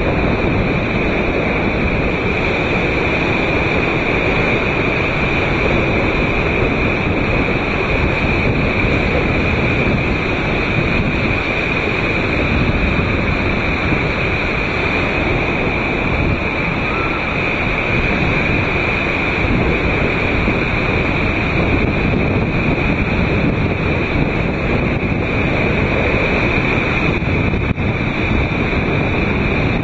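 Strong wind buffeting the microphone over surf breaking on a sandy beach: a steady, unbroken wash of wind and wave noise ahead of a storm.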